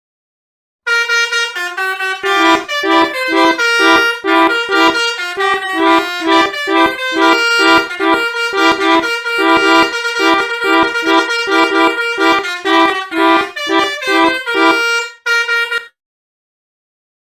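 Pianika (melodica) playing the Basuri telolet bus-horn tune: a held reedy note with quick repeated notes pulsing beneath it. It starts about a second in and cuts off abruptly near the end.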